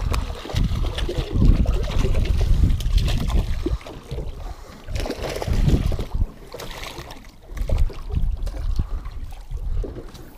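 Wind buffeting the microphone in uneven gusts, with water slapping and splashing around a small aluminium boat as a hooked fish is reeled in to the side and splashes at the surface near the end.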